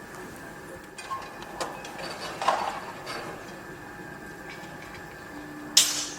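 Construction-site noise: a steady machine hum under scattered metallic clanks and knocks, with a sharp bang near the end, the loudest sound.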